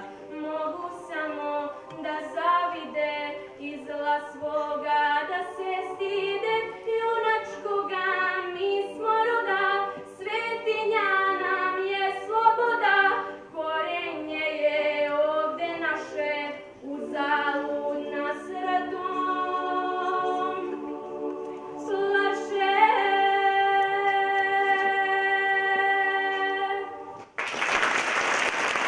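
Children's school choir singing a cappella, with long held notes in the second half. The singing stops just before the end and applause breaks out.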